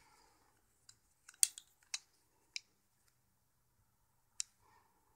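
Microtech Metal Mark butterfly knife handled in the hands: its aluminium handles and latch click and knock as it is opened and moved. About seven short, sharp metal clicks come at uneven intervals, the loudest about one and a half seconds in.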